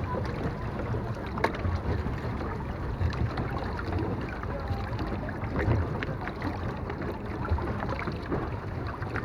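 Small boat under way: a steady low rumble with water noise around the hull and wind on the microphone.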